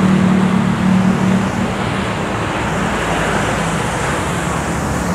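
City road traffic: a steady wash of passing vehicle noise with an engine's low hum, strong at first and fading about a second and a half in.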